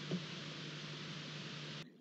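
Steady hiss with a low electrical hum from the nestbox camera's microphone, with one soft bump a fraction of a second in. The sound cuts off abruptly just before the end.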